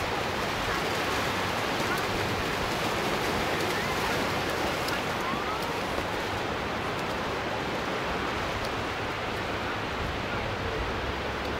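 Steady rushing noise of surf washing onto a sandy beach, with faint voices.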